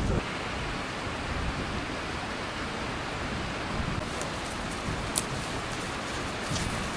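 Steady rushing hiss-like noise, with a few faint clicks partway through.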